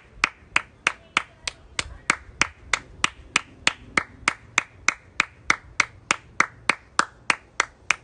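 One person clapping hands in a steady rhythm, about three claps a second.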